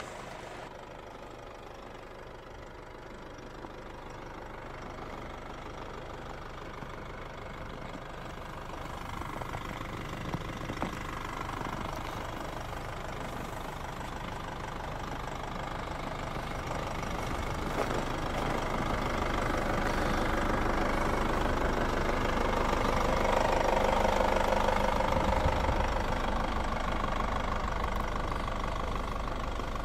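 Opel Antara's 2.2 CDTI four-cylinder turbodiesel idling steadily. It grows gradually louder through the second half, loudest about three-quarters of the way in, then eases slightly. A few light clicks come about a third of the way in.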